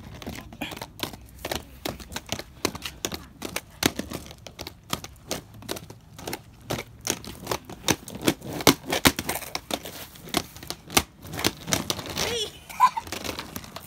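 Skate wheels rolling and knocking on a rough concrete path: a rapid, irregular run of clicks and clacks.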